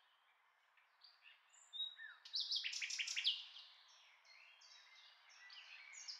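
Faint bird chirps: after a second or so of near silence, a quick run of short falling chirps, then scattered chirps that pick up again near the end.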